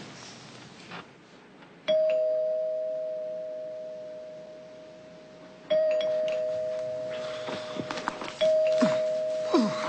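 Two-note ding-dong doorbell chime rung three times, each pair of notes ringing out and fading slowly before the next press. Soft rustling near the end.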